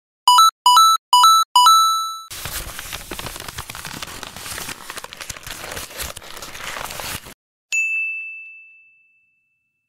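A sequence of sound-effect clips: four quick two-note chimes, each a lower tone then a higher one, the last left ringing; then about five seconds of crackling noise full of clicks; then a single high ding that fades away.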